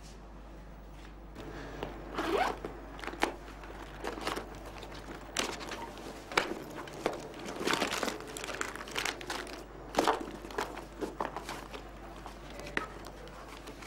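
Irregular rustling and crinkling of clothes and papers being handled and rummaged through, with scattered small knocks, over a faint low steady hum.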